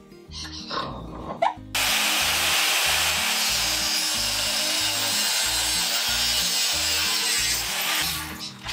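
Angle grinder with its disc bearing on 7 mm steel rebar clamped in a vise. It spins up with a rising whine. About two seconds in the disc bites into the steel with a sudden, steady harsh grinding that lasts about six seconds, then fades as the grinder comes off the work.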